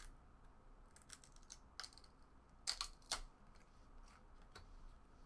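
Faint clicks and flicks of trading cards being flipped through by hand, with two sharper snaps close together about three seconds in.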